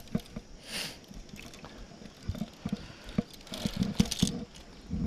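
Fishing rods and gear being handled in a small boat: scattered knocks and light clattering, with a brief swish about a second in.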